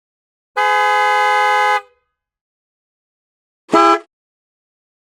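Car horns: one steady blast lasting a bit over a second, then, after a silent gap, a single short toot.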